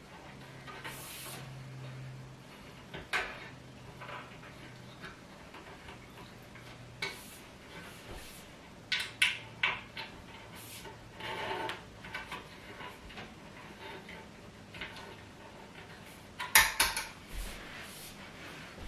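Scattered clinks, clicks and knocks of metal hardware and tools being handled while assembling a flat-pack dining set, with a quick cluster of clinks near the end.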